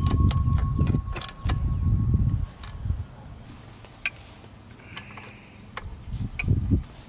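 A 3/8-inch ratchet and socket tightening the final-drive oil filler bolt, with clicking and metal handling noise for the first two and a half seconds. Then come a few light clinks of tools being handled, and a short rattle near the end as a torque wrench is fitted onto the bolt.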